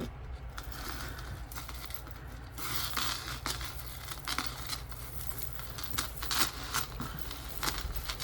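Costume jewelry being handled and sorted by hand: a run of small, irregular clicks and rustling as chains and pieces are moved about.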